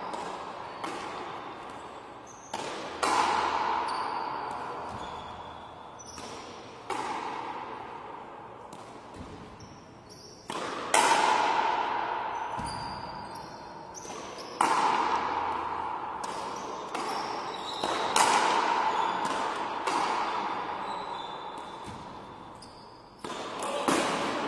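A rubber frontenis ball being struck by rackets and smacking off the fronton wall. The sharp cracks come every few seconds, some in quick pairs, and each rings on in the big hall's long echo.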